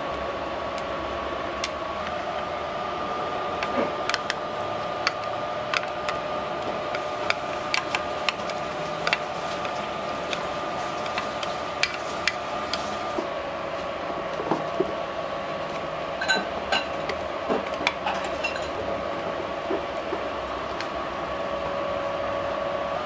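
Scattered clicks and clinks of chopsticks and a stainless steel tray against a metal pot as mushrooms, scallops and shrimp are placed in it. Several clinks in the middle ring briefly. A steady hum runs underneath.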